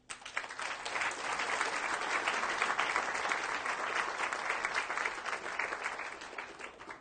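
Audience applauding at the end of a lecture. The clapping swells within the first second, holds steady, and fades out near the end.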